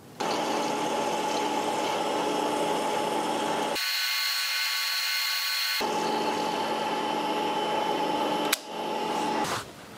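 Milling machine spindle running with an end mill cutting a 4 mm deep pocket in a metal block: a steady machine whine with several pitched tones. For about two seconds in the middle the low part drops out abruptly, leaving a higher whine, then returns. A single sharp click comes near the end before the sound drops away.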